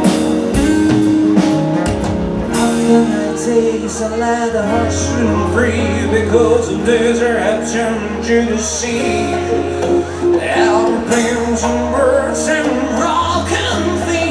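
Live band music: an acoustic guitar strums over a steady bass line, and a wavering lead melody comes in above it from about five seconds in.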